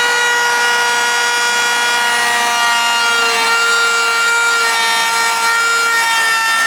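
Power saw cutting wood: a steady motor-and-blade tone over the rasp of the cut, its pitch shifting slightly partway through.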